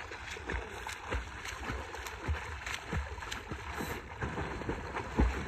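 River water splashing and sloshing close by as someone moves through it: irregular small splashes with a few dull low thumps.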